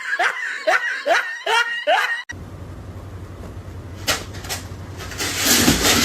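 A person laughing in quick repeated bursts, about two or three a second, cut off sharply a little over two seconds in. It is followed by a steady low rumble and hiss that grows into a louder rushing hiss near the end.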